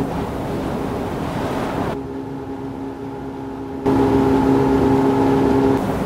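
Sound-effect track of a motorboat engine running with a steady hum over rushing wind and water. The engine hum comes in muffled about two seconds in, is loud and clear from about four seconds, and drops away near the end.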